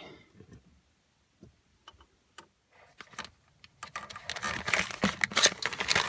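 A few light clicks, then from about four seconds in a dense rustling and crinkling as a small paper parts packet is handled.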